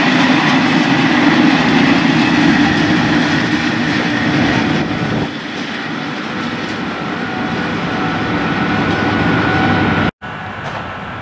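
MÁV class V43 electric locomotive hauling passenger coaches, running past with wheels clattering over the rails. It is loudest for the first five seconds, then runs on more steadily with a faint high whine, and the sound drops out briefly near the end.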